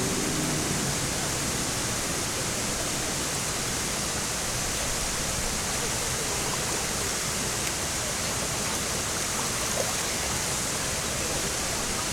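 Waterfall pouring into a swimming hole: a steady, even rush of falling water.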